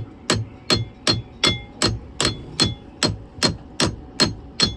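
A hammer tapping steadily on metal, about two and a half blows a second, each with a short metallic ring: knocking a stuck bolt through while freeing a marine diesel engine for removal.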